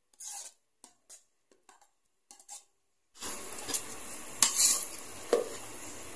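Thick sauce slopping into a large aluminium pot of rice noodles in short wet bursts, then a metal ladle and spoon stirring it through the noodles, with several sharp clinks of metal against the pot.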